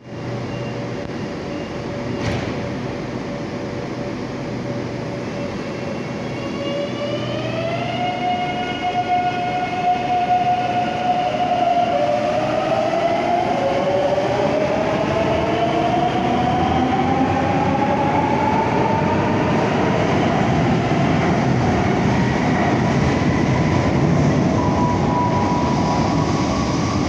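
Madrid Metro 9000-series train pulling away from the platform, with a sharp click about two seconds in. From about seven seconds its traction motors' whine climbs in pitch, drops back around twelve seconds in and climbs again as it accelerates. Wheel and rail noise grows louder as it runs off.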